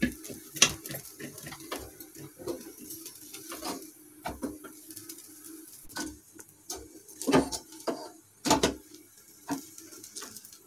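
Flat metal knife clicking and knocking against a gas stove's burner grate as a naan is held and turned over the flame, with a cluster of louder knocks about seven to nine seconds in. A steady low hum runs underneath.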